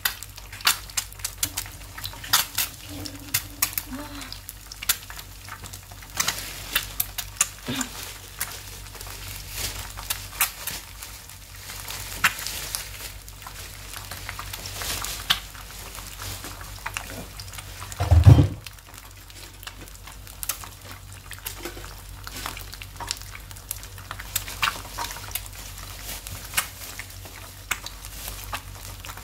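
Sunny-side-up eggs frying in oil in a nonstick pan, sizzling with frequent crackles and spits. A single dull thump about two-thirds of the way through.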